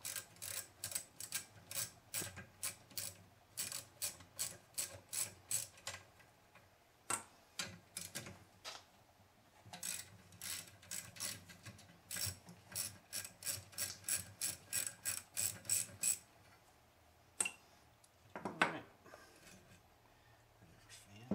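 Ratcheting wrench clicking as it backs out the screws that hold a motorcycle cooling fan to its radiator: runs of quick clicks, about three a second, with a pause in the middle. A few knocks follow near the end.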